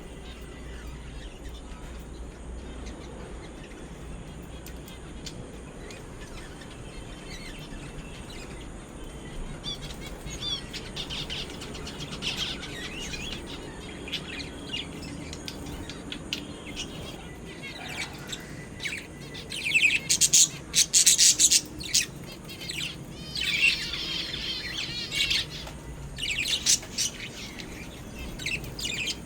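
A colony of zebra finches calling with short, high chirps: faint and sparse at first, busier from about ten seconds in, with the loudest flurry of calls about two-thirds of the way through.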